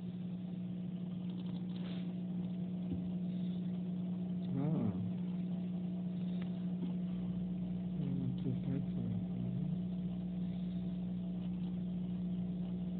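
Steady low hum of a running machine, with a pitched tone and overtones held the whole time; a deeper rumble joins about seven seconds in. Brief faint voice-like calls come about five seconds in and again around eight to nine seconds.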